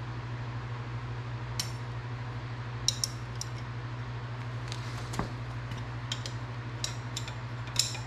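Wrench clinking against the bolt and steel of a Harley-Davidson Shovelhead's kick-start lever as the new stainless kicker pedal is tightened on: about a dozen sharp metal clinks, scattered unevenly, over a steady low hum.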